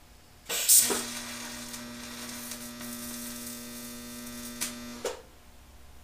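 TIG welding arc: a crackling strike about half a second in, then a steady electrical buzzing hum from the arc for about four seconds that cuts off suddenly.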